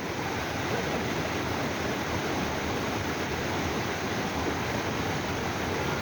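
Fast-flowing mountain river rushing, a steady unbroken wash of water noise.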